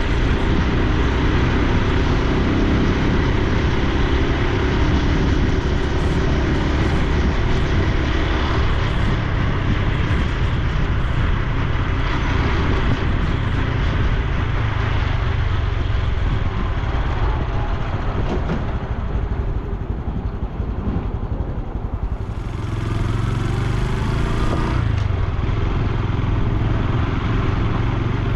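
Honda Super Cub C125's air-cooled single-cylinder four-stroke engine and exhaust running while the bike is ridden, with road and wind noise. It eases off about twenty seconds in and picks up again, with a brief rush of hiss a few seconds later.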